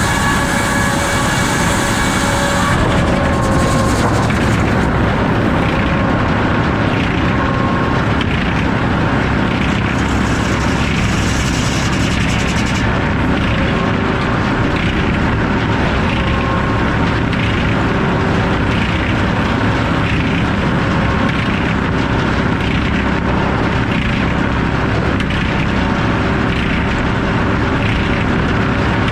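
Circular sawmill with an F-pattern inserted-tooth head saw running and sawing a log, a loud steady mechanical din. A brighter, hissier cutting sound comes in the first few seconds and again about ten seconds in.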